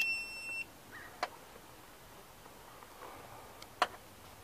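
A portable jump starter gives a single high electronic beep, just under a second long, as it is switched on while clamped to a flat car battery. Two short clicks follow, about a second in and near the end.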